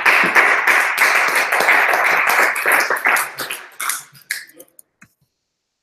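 A small group applauding, the clapping thinning out to a few last claps and stopping about five seconds in.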